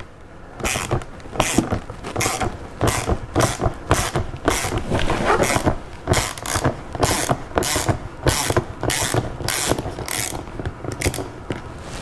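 Ratchet driver with a Torx 30 bit backing out a large screw in the car door's inner carrier: a burst of pawl clicking with each back-swing, about two strokes a second, stopping about a second before the end as the screw comes free.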